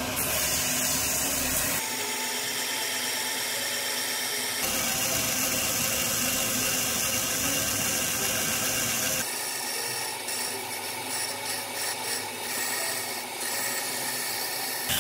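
Belt grinder running with its abrasive belt grinding the steel tang of a knife. The sound changes abruptly about 2, 4.5 and 9 seconds in, and over the last few seconds it rises and falls as the steel is pressed to the belt and eased off.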